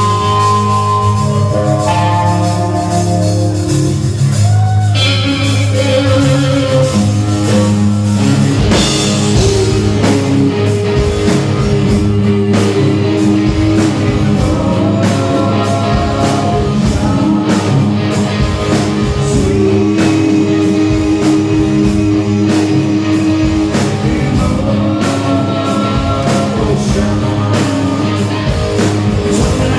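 Rock band playing: held guitar and keyboard-like notes, then drums and the full band come in about eight seconds in, with singing.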